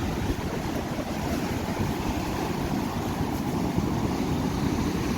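Sea surf washing against the shore, with wind buffeting the microphone: a steady, rough rushing that is heaviest in the low end.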